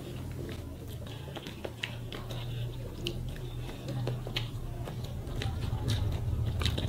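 Eating by hand: rice being mixed with the fingers and chewed, with short scattered mouth clicks and smacks. Under it, a steady low hum comes in at the start and slowly grows louder.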